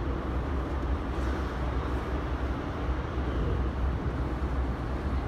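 Steady low rumble and rolling noise of an Airport Railroad (AREX) train running, heard inside the passenger car.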